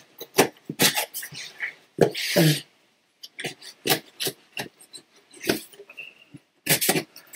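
Scissors snipping and scraping through packing tape on a cardboard box: a string of short, sharp clicks, with a louder rasping burst about two seconds in.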